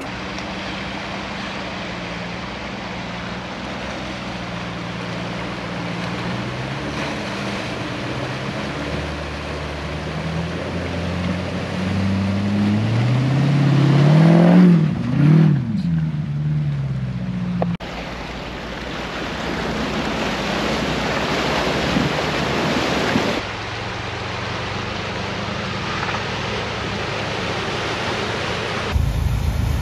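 4x4 SUVs fording a shallow river, engines running over rushing, splashing water. Midway, the engine revs up and falls back as a Jeep Grand Cherokee climbs out of the water throwing spray.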